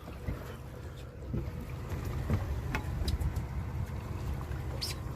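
Low steady rumble of a panga's outboard motor running at idle, with a short sharp click near the end.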